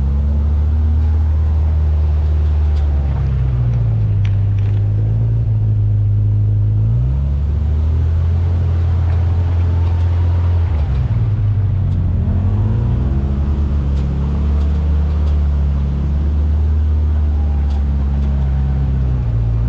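Off-road 4x4's engine running at low speed, its revs rising and falling several times as the throttle is worked while crawling a trail.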